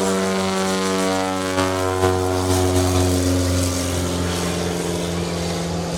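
Propeller-driven light aircraft flying past, its engine and propeller drone slowly dropping in pitch as it goes by, over a steady low hum.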